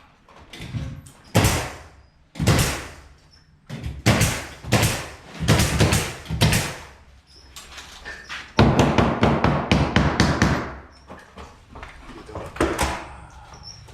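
Carpentry work noises: a string of separate knocks and scraping strokes, with a quick run of close-spaced strikes about two thirds of the way through.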